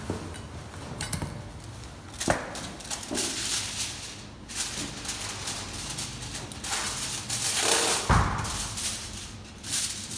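Kitchen prep handling sounds: a sharp knock on the counter about two seconds in, stretches of rustling and crinkling of food wrap, and a heavy thud about eight seconds in.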